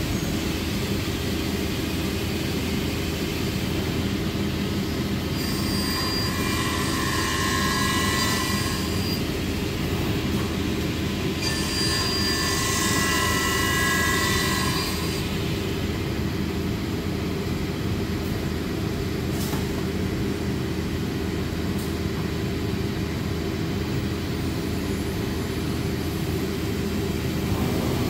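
A CNC router runs a job on a wooden board, with its dust collectors giving a steady drone. Twice, about five and eleven seconds in, a high whine with a hiss rises over the drone for three to four seconds as the cutting tool works through the wood.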